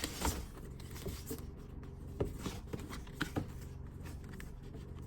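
Handling of a mailed package of clipper blades and grooming shears while it is unpacked: scattered light clicks and knocks with some rustling, over a steady low hum.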